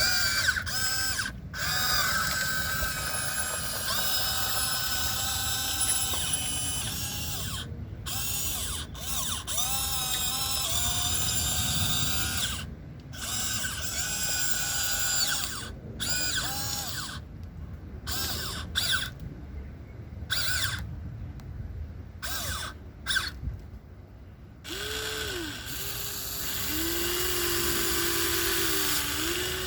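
Huina 1494 radio-controlled model excavator's motors whining in short runs as it digs, the pitch gliding up and down as each movement starts, slows and stops, with brief pauses between. A lower, steadier whine takes over near the end.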